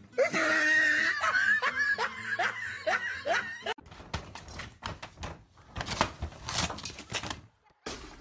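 A person laughing in a quick run of short rising bursts. About four seconds in, a crackle of scratching and tearing as a cat claws through the paper of a shoji-style paper screen.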